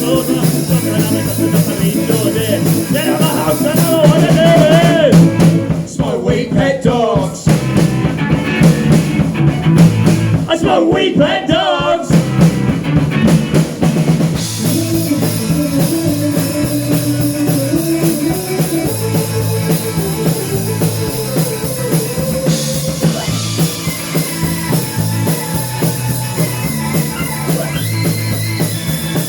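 Rock music with a drum kit and bass, with brief vocal lines near the start.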